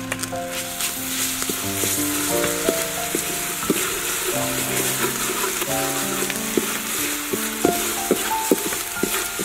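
Garlic and black pepper sizzling in hot oil and palm sugar in a metal wok, with a spatula scraping and tapping against the pan as it is stirred. Background music with held melody notes plays throughout.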